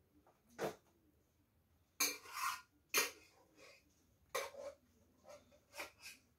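Dry cat food rattling into a bowl and bowls clattering in several separate short bursts. The longest rattle comes about two seconds in and lasts about half a second.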